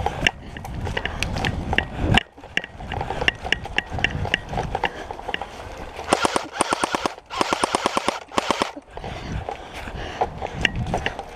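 Airsoft electric gun firing two rapid full-auto bursts, about six and seven and a half seconds in, each a quick even rattle lasting around a second. Scattered single airsoft shots click on and off around them.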